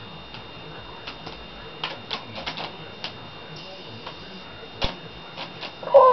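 Irregular light clicks and taps, a dozen or so spread over several seconds, over a faint steady high whine. A brief louder vocal sound comes right at the end.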